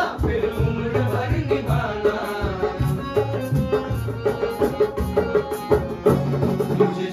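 Live acoustic performance of a Hindi film song: tabla and dholak keep a steady rhythm under harmonium and acoustic guitar, with a group of men's voices singing along.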